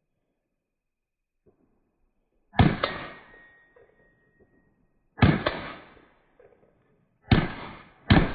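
Gunshots in a practical shooting stage: a quick pair about two and a half seconds in, another pair about five seconds in, then two more shots near the end. Each is a sharp crack with a short echo, and a faint high ring lingers after the first pair.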